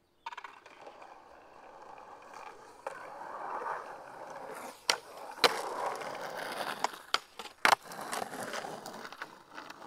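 Skateboard wheels rolling fast over pavement in a steady rush, with a few sharp clacks: two about five seconds in and one louder one near eight seconds.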